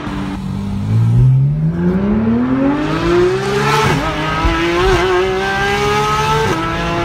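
Porsche 991 GT3's flat-six with an Fi Exhaust system accelerating hard, heard from inside the cabin. The revs climb steeply for about three seconds, drop back at a shift about four seconds in, then hold high and steady, with another short break near the end.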